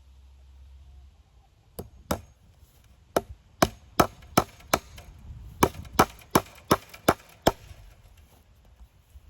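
Hammer blows on a wooden fence post: two strikes, then two quick runs of five and six sharp blows at about three a second.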